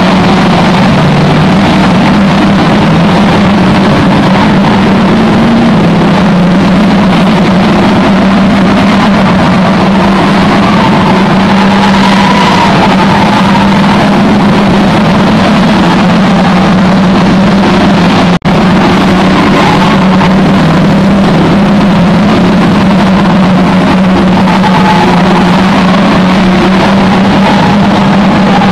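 Engines of several saloon stock cars lapping the oval, blending into one loud, steady drone. The sound cuts out for an instant about two-thirds of the way through.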